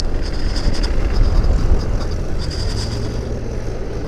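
Hero XPulse motorcycle's single-cylinder engine running steadily while riding, mixed with a steady low rumble of road and wind noise.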